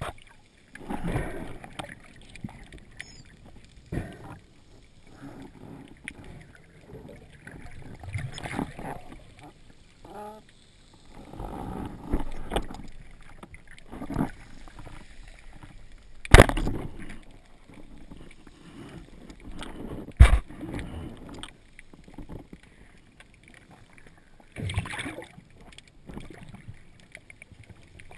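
Underwater water noise heard through a camera's dive housing as a spearfisher swims: swells of sloshing and bubbling. Two sharp knocks stand out about four seconds apart in the second half.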